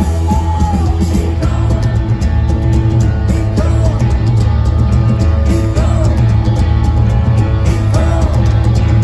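Live punk rock band playing loud: driving electric guitars, bass and drums with a singer's voice in and out, as heard from the crowd at an outdoor concert.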